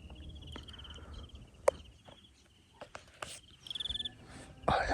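Crickets chirping in short pulsed trills, with a few sharp clicks, the loudest about a second and a half in.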